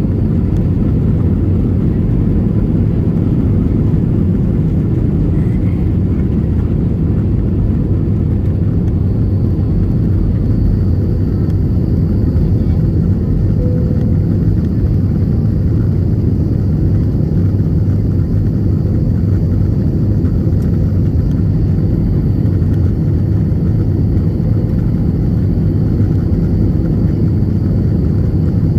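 Jet airliner's engines at takeoff thrust heard from inside the passenger cabin: a loud, steady low rumble through the end of the takeoff roll and the initial climb, with a faint high whine joining about ten seconds in.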